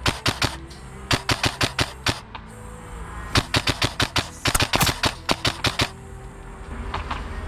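Airsoft guns firing in rapid strings of sharp cracks, about six or seven shots a second, in three volleys with a couple of single shots near the end.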